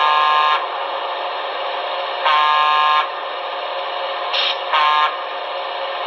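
Sound decoder of a Broadway Limited model PRR GG1 electric locomotive playing its grade-crossing horn through the model's small speaker: two long blasts and then a short one, the long-long-short opening of the grade-crossing signal. A steady background running sound from the locomotive sits under the horn, and a brief higher tone comes just before the short blast.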